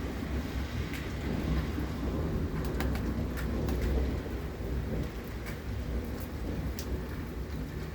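Thunder rumbling low and long, swelling for about four seconds and then easing off, with scattered raindrop ticks.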